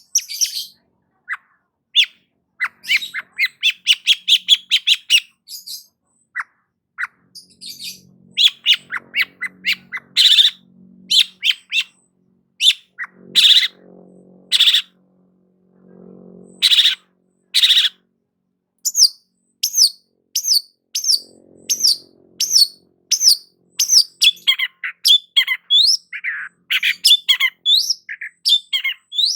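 Long-tailed shrike (cendet) singing in full voice: harsh squawking calls, a fast run of repeated rattling notes, and in the second half a long series of short down-slurred whistles.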